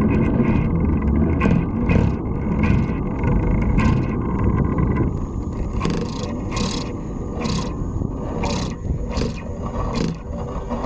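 Fly reel being worked by hand during a fight with a big fish: a series of short, sharp scrapes and clicks, roughly one a second, more frequent in the second half. Under them runs a steady low rumble of wind on the microphone.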